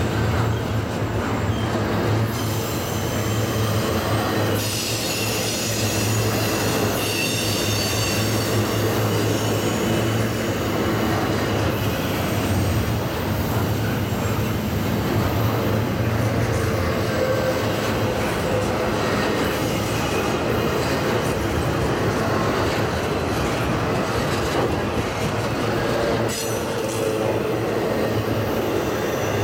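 Double-stack intermodal train's well cars rolling steadily past, with a continuous rumble of steel wheels on rail. High-pitched wheel squeal rises a few seconds in and fades by about seven seconds.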